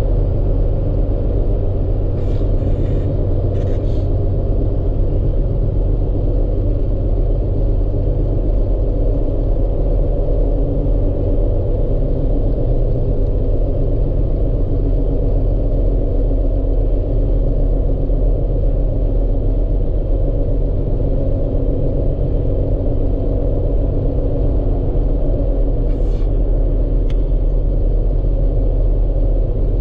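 Vehicle driving, with a steady low engine and road rumble throughout. A few short, faint clicks come about two seconds in and again near the end.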